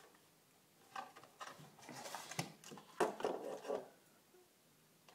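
Hands handling the lathe's metal control box and its wire leads: a scattering of light clicks, knocks and rubbing, loudest about three seconds in.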